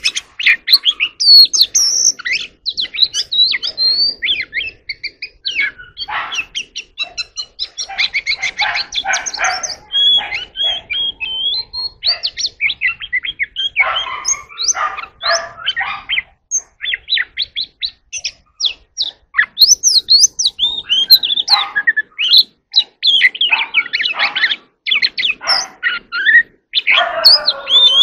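Oriental magpie-robin singing: a long, varied run of clear whistles and quick chirps, broken by harsher scratchy notes and a few short pauses.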